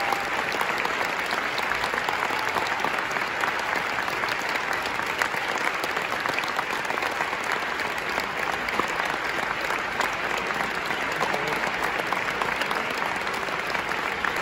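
A large theatre audience applauding: dense, steady clapping from many hands.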